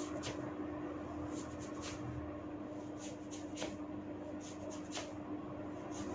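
Hair cracking during a head massage: short, sharp crackling snaps as strands of hair are tugged, about a dozen at irregular moments, over a steady low hum.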